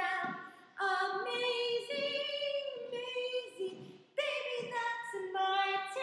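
A woman singing without accompaniment: long held notes in phrases, breaking briefly just before one second in and again about four seconds in.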